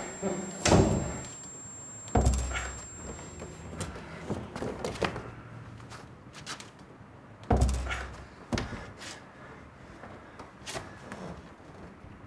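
Dull thuds and knocks of a heavy plastic barrel being bumped and set down. Two loud low thumps, about two seconds in and again past the middle, among lighter knocks and clicks.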